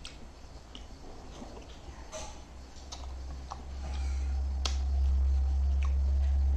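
Close-miked eating: scattered sharp mouth clicks and smacks a few times a second apart. Under them a deep low rumble swells about halfway through and stays loud.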